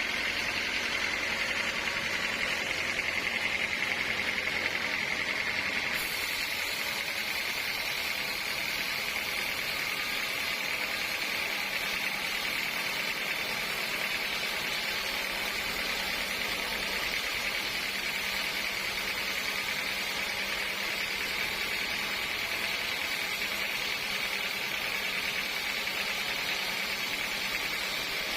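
Sawmill machinery running steadily: a continuous noisy drone with a prominent high hiss, whose tone shifts slightly about six seconds in.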